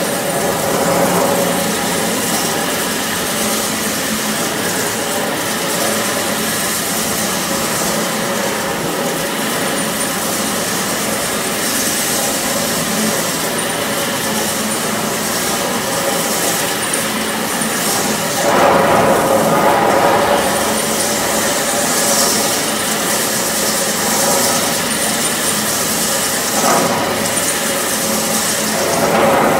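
Electric wet floor grinding machine running, its rotating stone-grinding head working a water-flooded stone floor: a steady whirring grind that surges louder for a couple of seconds about two-thirds of the way in, briefly again later, and near the end.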